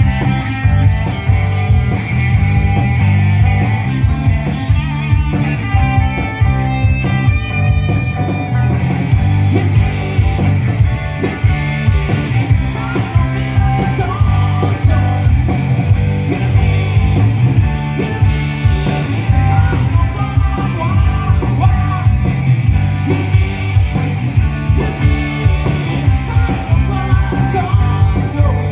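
Live rock band playing loudly through a PA: electric guitars and bass, with a man singing into a handheld microphone.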